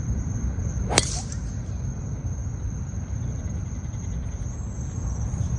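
A single sharp crack of a golf club striking a ball, about a second in. Under it run a steady low rumble and a constant high insect trill.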